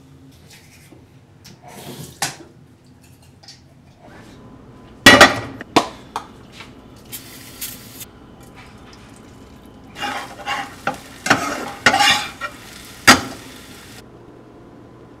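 Cooking at the stove: a nonstick skillet, utensils and dishes clank and knock in bursts as scrambled eggs are made, with a short hiss about halfway through. A few faint taps come first.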